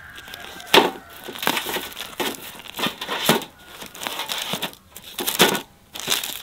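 Freshly baked round Uzbek breads and the baking paper under them being handled and lifted: a string of irregular crackles and rustles, loudest a little under a second in and again around five and a half seconds.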